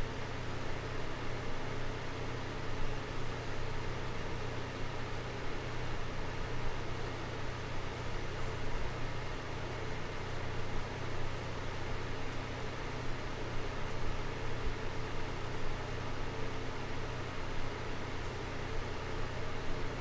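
Small desk fan running steadily: an even rush of air over a low, constant motor hum.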